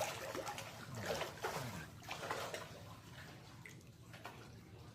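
Fish splashing at a pond's surface as they scramble for thrown food, with faint water trickling. The splashes are loudest in the first couple of seconds and then die down.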